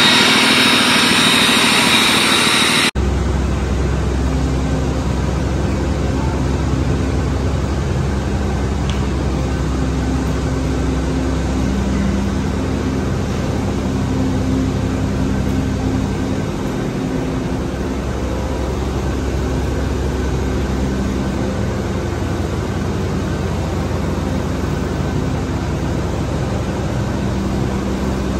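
A 2009 Cummins ISB 6.7L six-cylinder diesel engine running loudly on test, full of hiss, cuts off abruptly about three seconds in. After that comes a steady low hum of shop background with a few faint steady tones.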